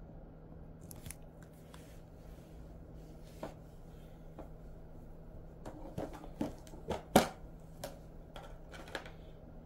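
Dog-treat packaging being handled: scattered sharp crackles and clicks, sparse at first, then a quick run of them about six to nine seconds in, the loudest just after seven seconds. A faint steady hum runs underneath.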